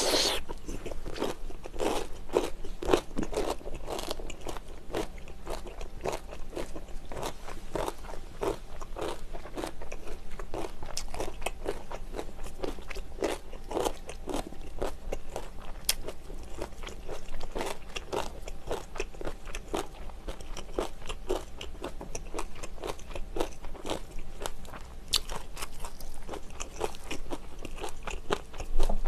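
Close-miked eating sounds: kimchi being bitten and chewed, with many crisp crunches at an uneven pace and wet mouth sounds between them.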